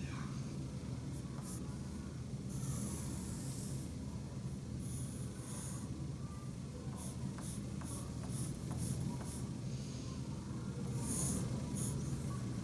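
Pencil sketching on paper: irregular runs of scratchy strokes, with the longest around three, five and eleven seconds in, and a few light ticks, over a steady low hum.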